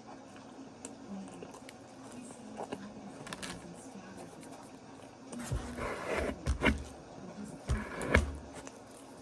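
Mouth and handling noises of eating close to the microphone: a quiet stretch, then two short clusters of chewing and knocking sounds, about five and a half and eight seconds in.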